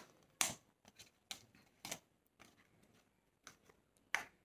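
A cardboard earphone box handled by hand: about half a dozen short, light clicks and scrapes at uneven spacing, the two loudest about half a second in and near the end.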